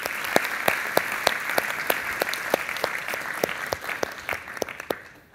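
Audience applauding, a dense patter of claps that dies away near the end.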